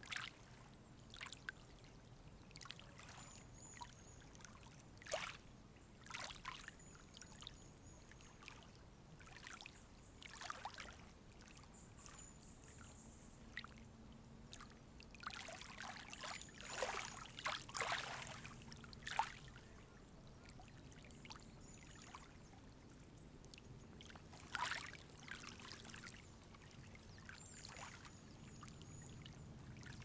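Lake water lapping gently at the shore: soft, irregular splashes a second or a few seconds apart, with a busier run of them about halfway through, over a faint steady low hum.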